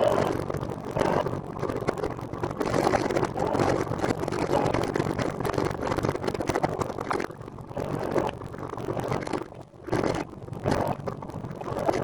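Road and traffic noise with wind on the microphone, a fluctuating rush that dips briefly about three-quarters of the way through.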